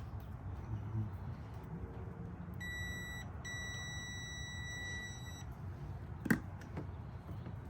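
An electronic beeper sounding a steady high-pitched tone twice, a short beep and then a longer one of about two seconds, followed by a single sharp click.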